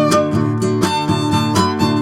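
Background music with string instruments and a steady plucked rhythm.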